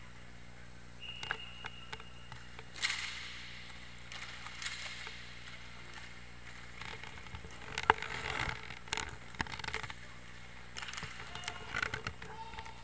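Inline hockey play: scattered clacks of sticks on the puck and each other, and skate wheels rolling on the rink floor. The loudest is a single sharp knock about eight seconds in, inside a busier stretch of clatter.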